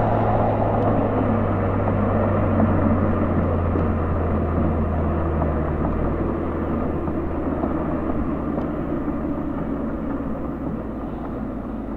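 2003 Mercedes-Benz SL500's 5.0-litre V8 exhaust, heard at the tailpipe while driving: a steady low drone whose pitch drops slightly about halfway through, with the level easing off gradually.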